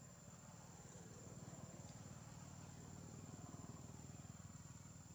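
Faint steady background hum, low-pitched and a little louder in the middle, with a thin steady high-pitched tone above it.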